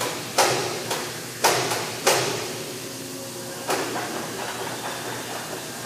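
Sharp metallic knocks with a short ring, about one every half second for the first two seconds and one weaker knock near four seconds in: metal striking metal as a C-130J propeller is worked onto its shaft to seat it.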